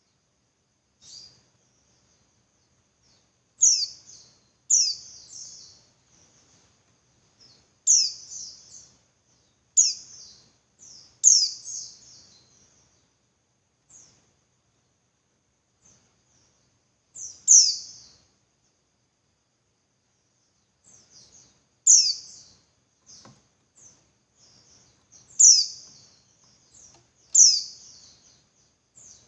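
Female white-eye (pleci) giving its call to a male: about nine sharp, high, downward-slurred notes at irregular intervals, with softer twittering between them.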